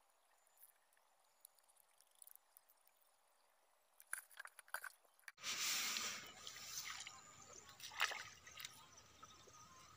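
Water sloshing and dripping with scattered small knocks and clicks; faint for the first five seconds, then louder.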